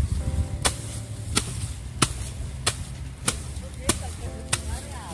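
Jumbo steel arit sickle slashing into a heap of dry rice straw: seven sharp, crisp cuts in a steady rhythm, about two-thirds of a second apart.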